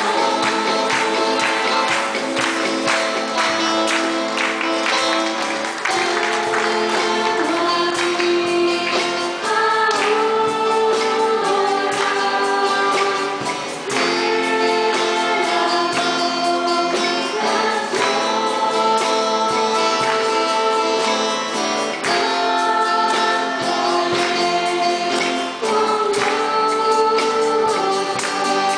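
Group of voices singing a worship song together over instrumental accompaniment with a steady percussive beat.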